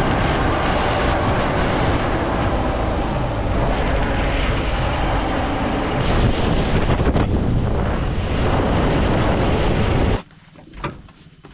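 Moving vehicle's road and engine noise buried under heavy wind on the microphone: a steady loud rush that cuts off suddenly about ten seconds in.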